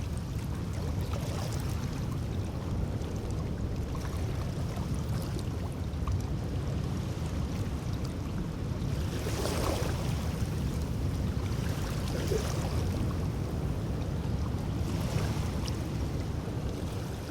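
Steady low rumble with a wash of water noise over it, the hiss swelling briefly three times in the second half.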